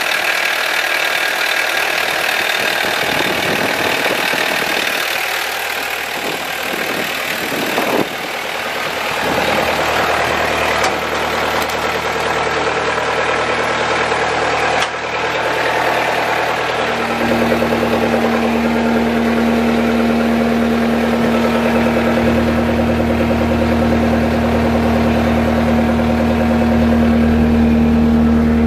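Cummins diesel engine of a ride-on construction sweeper idling steadily. Past the middle, a steady pitched hum sets in over the engine sound and holds to the end.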